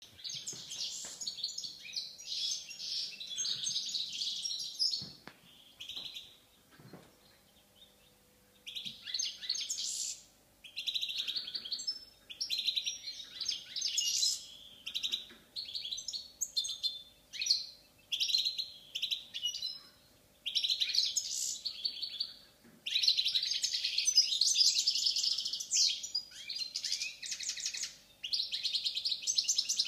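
European goldfinch of the Balkan form (Carduelis carduelis balcanica) singing: runs of rapid, tinkling twittering phrases with short breaks between them, and a longer pause of about three seconds near the start.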